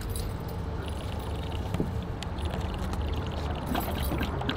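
A vehicle engine running steadily, a low rumble with a faint held tone, with small clicks and knocks of handling over it.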